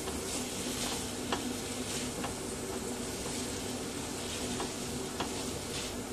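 Vegetables sizzling in a hot non-stick pan while a spatula stirs and tosses them, with a steady hiss and scattered light scrapes and taps of the spatula on the pan.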